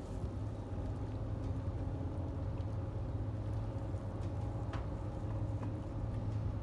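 Steady low drone of the 1,000-ft Great Lakes freighter Indiana Harbor's diesel engines as the ship passes close by, with a steady higher hum over it and a few faint ticks.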